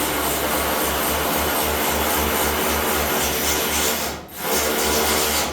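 Power tool running steadily on the truck's bodywork fasteners, with a low pulsing about four times a second; it dips briefly a little after four seconds and cuts off at the end.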